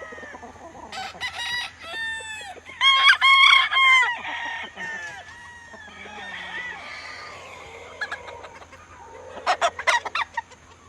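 Gamefowl roosters crowing, the loudest crows about three to four seconds in, with hens or roosters clucking.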